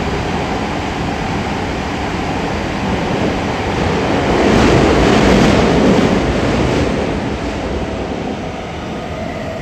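Tokyo Metro 8000 series subway train running at speed through a tunnel, heard from inside the car: a steady rumble of wheels on rail that swells louder about halfway through, then eases a little near the end.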